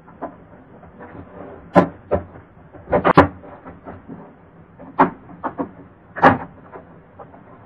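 Dell Inspiron N5010 laptop keyboard clicking and knocking in its frame as it is pushed back and pried at its top edge to release its retaining clips. There are about seven irregular sharp plastic clicks, the loudest ones about three seconds in and about six seconds in.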